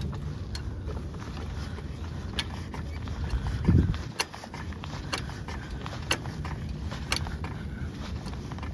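Hydraulic floor jack being pumped to lift a truck's rear axle: a short click with each stroke of the handle, about one a second, and a louder low thump about midway, over a steady low rumble.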